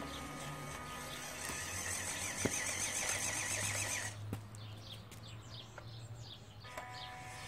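Small electric motor and gear drive of a WPL B-16 6x6 RC truck whining steadily while it drives. The whine cuts off about four seconds in, leaving a low hum and a few short high chirps.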